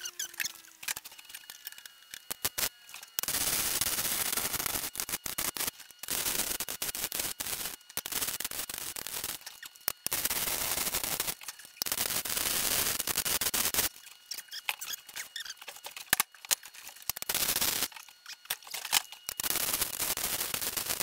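Electric arc welding on scrap steel in repeated bursts of one to two seconds, crackling with short pauses between beads. A short falling whine fades out at the start.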